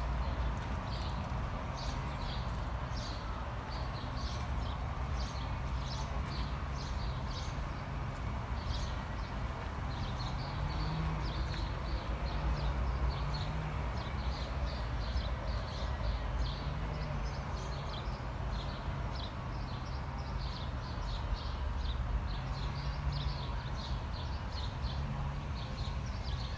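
Songbirds chirping and singing throughout, a dense run of short, quick high notes, over a steady low rumble.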